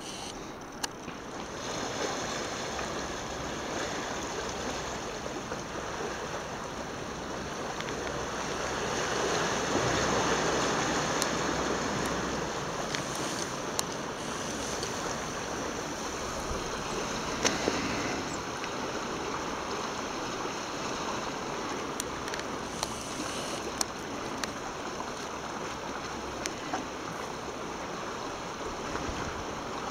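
Steady rush of lake water and wind, swelling a little about a third of the way in, with a few short clicks scattered through it.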